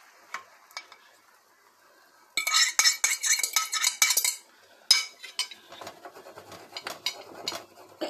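A metal utensil scraping and clattering against a bowl for about two seconds as the egg-and-potato tortilla mixture is pushed out into an oiled frying pan. A low sizzle with a few light clinks follows.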